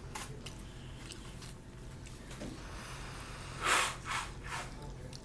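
Faint eating sounds over a steady low hum, then a few short breathy puffs of air about three and a half seconds in, the first the loudest: blowing on hot jjajangmyeon noodles held up on chopsticks to cool them.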